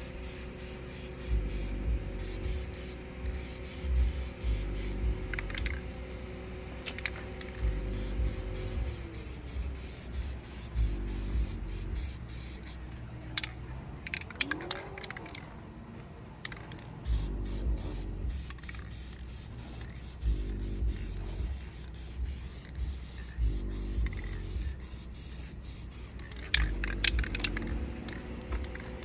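Background music with a pulsing bass beat, over the hiss of aerosol spray paint with scattered clicks.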